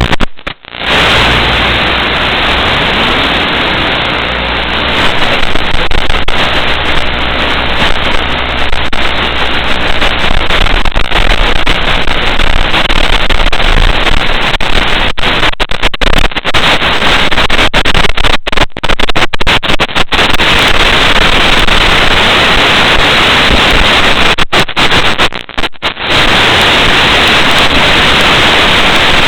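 Loud, steady hiss of static from an analog FPV video receiver's audio channel, cutting out briefly several times between about 15 and 26 seconds in.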